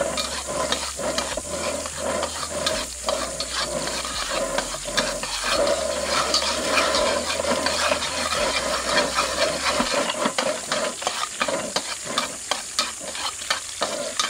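Egg sizzling in hot oil in a cast-iron wok, with a long-handled spatula scraping and clacking against the wok many times as it is stirred.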